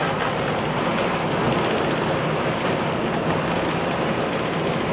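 Wind and rough seas rushing past a sailing catamaran, heard from inside the saloon as a steady rush. There is no slamming of waves under the bridgedeck.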